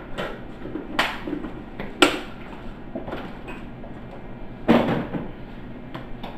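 Kitchen handling noises: a few sharp knocks and clunks, one about a second in, the loudest a second later, and a longer clunk with some rustling near the end, over low room noise.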